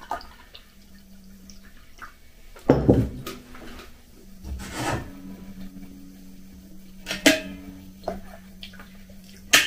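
Tea poured from a ceramic teapot into a china mug, then knocks and clinks of crockery and a stainless steel kettle being handled, about three and seven seconds in, and hot water poured from the kettle into the mug near the end.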